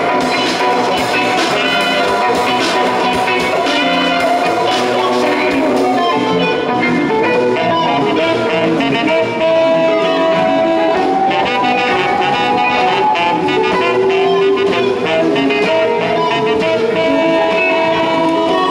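A live band playing, with electric bass guitar, keyboard and saxophone; the melody moves in long held notes that slide gently in pitch.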